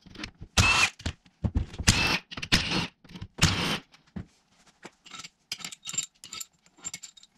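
A cordless power tool runs in four short bursts, backing out the case-half bolts of a Subaru short block. After that come light metallic clinks as the loosened bolts and tools are handled.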